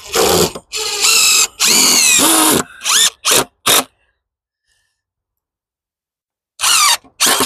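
Cordless drill driving timber screws into wood, run in bursts: one long run of about two and a half seconds whose pitch drops as the screw bites, three quick blips of the trigger, then a pause and two more short bursts near the end.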